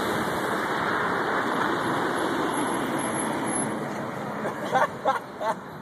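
Street traffic noise, a car's engine and tyres close by, steady and then fading after about four seconds. Near the end come three brief loud sounds.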